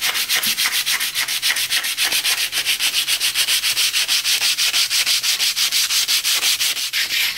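Sandpaper rubbed by hand over a primed steel rear axle housing (a Ford 9-inch rear end), in fast even back-and-forth strokes of about eight a second. It is scuffing the primer so that the next coat of filler primer will bite.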